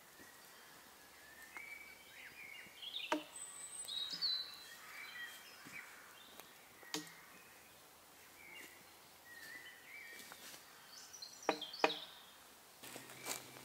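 Woodland birds chirping and trilling in short phrases, with a few sharp snaps scattered through, the loudest a close pair near the end.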